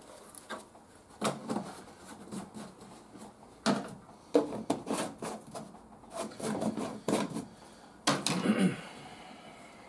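Irregular knocks, clatters and rustles of hands handling a plastic oil bottle and the cardboard box of a new oil filter on a metal wing top, with a brief rustle of packaging near the end.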